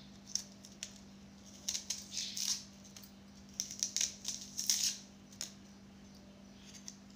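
Small kitchen knife scraping and nicking the dry, papery skin off a small sprouted bulb in short, crisp strokes that come in little clusters. A steady low hum runs underneath.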